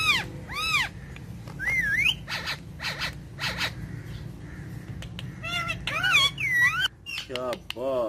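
Ring-necked parakeets calling: a run of short squawks that arch up and down in pitch, with a few harsher screeches about three seconds in and a falling call near the end.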